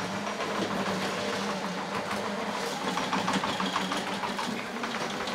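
Petrol engine of a tracked remote-control lawn mower running steadily as the mower drives up under radio control.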